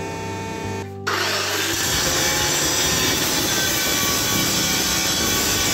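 Angle grinder grinding a Damascus steel billet, a loud, steady harsh grinding noise that starts about a second in.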